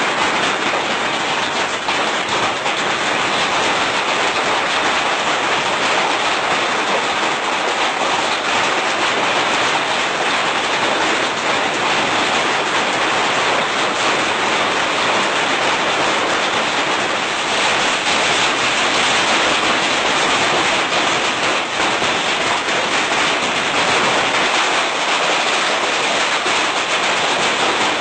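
Hailstones falling with heavy rain, a dense, steady clatter of countless small impacts.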